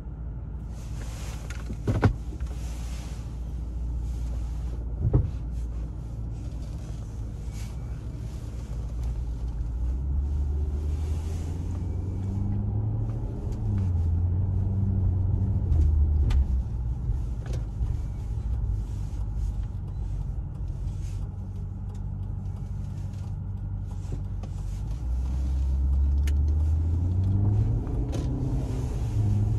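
2009 Maserati Quattroporte's V8 engine heard from inside the cabin, running low, then rising in pitch as the car accelerates about ten seconds in and again a few seconds before the end. Two sharp knocks sound in the first few seconds.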